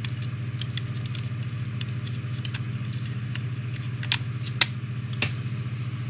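Small plastic clicks and taps as the battery cover is fitted back onto a replica Comlock handset, the sharpest click coming about two-thirds of the way in. A steady low hum runs underneath.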